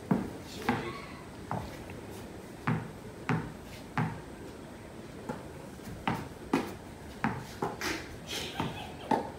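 Irregular sharp knocks and taps on a wooden deck, roughly one every half second to a second, from a tennis ball bouncing and people moving about between points of a mini-tennis game.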